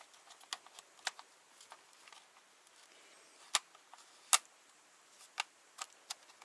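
Scattered small clicks and taps of a Canon EOS 6D Mark II camera body and lens being handled while the lens is fitted, with two sharper, louder clicks a little past halfway.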